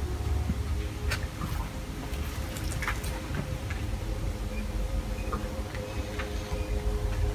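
Quiet ambience inside an abandoned building: a steady low rumble on the microphone, a few scattered clicks, and faint short bird chirps from outside.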